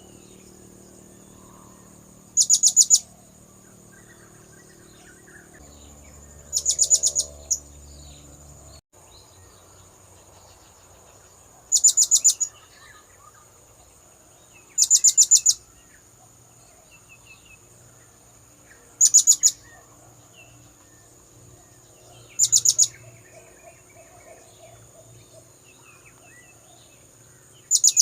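Blue-crowned hanging parrot (serindit) lure call: seven short bursts of rapid, high-pitched repeated notes, each under a second, coming every three to five seconds.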